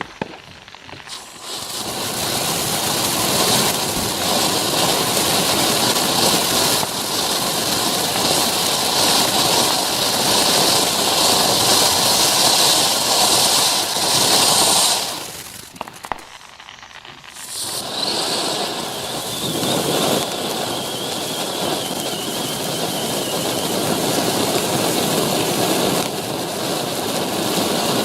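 Happy Family 'Game On' consumer firework fountain spraying with a steady loud hiss, which dies away for about two seconds around the middle as one effect ends, then starts hissing again with the next effect.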